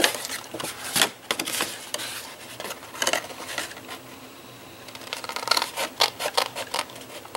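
Scissors snipping through cardstock in short runs of cuts, with the stiff paper rustling as it is turned, and a quieter spell about halfway through.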